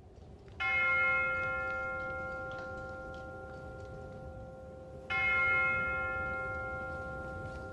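A bell struck twice, about four and a half seconds apart, each strike ringing and slowly dying away, over a low steady rumble.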